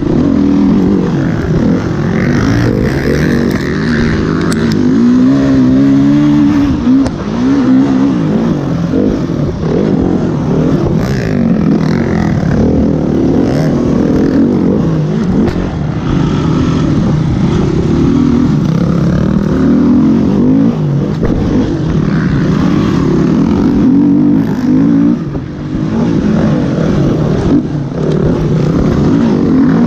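Enduro motorcycle engine running hard and loud, revving up and down over and over as the throttle opens and closes and the gears change, with a brief drop in revs a little before the end.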